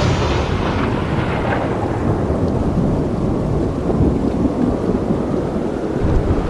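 Thunder during a lightning storm. The sharp crack's bright tail fades over the first two seconds, and a steady low rumble carries on after it.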